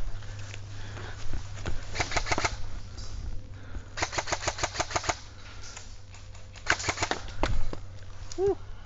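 Airsoft guns firing in three rapid full-auto bursts of sharp clicks, about ten shots a second: a short burst about two seconds in, a longer one of around a second at four seconds, and a short one near seven seconds.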